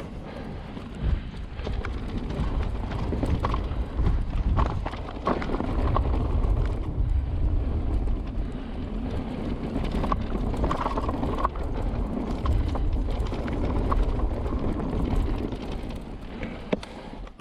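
Wind buffeting the microphone with a heavy low rumble, over irregular knocks and rattles from the e-mountain bike on rough trail. The rattling comes from a loose rear mudguard whose stay clamp has snapped.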